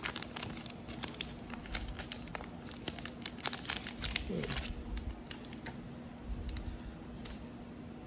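Foil wrapper of a Panini Prizm basketball card pack crinkling as it is peeled open by hand and the cards slid out: a rapid run of crackles that thins out after about five seconds.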